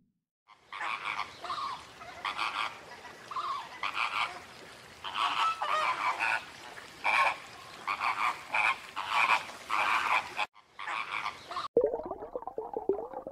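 Flamingo honking: a run of short honking calls, one or two a second, with a brief break about ten and a half seconds in. Near the end the calls stop abruptly and a different run of quick ticking sounds begins.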